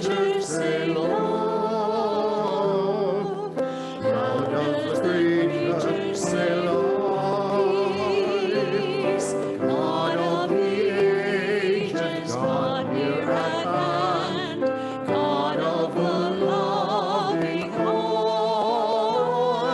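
Hymn singing: voices singing a slow church hymn, with held, wavering notes throughout.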